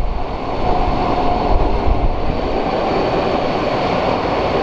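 A Boeing KC-767 tanker's twin GE CF6-80C2 turbofan engines running at taxi power as the jet taxis past. The sound is a steady rush of jet noise over a deep low rumble, with a thin steady whine on top.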